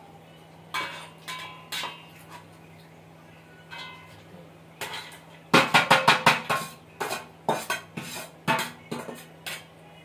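Hard clicks and clinks of ngán clam shells being knocked and cracked open. A few scattered knocks come first, then a quick run of about seven just past the middle, then more at a slower pace.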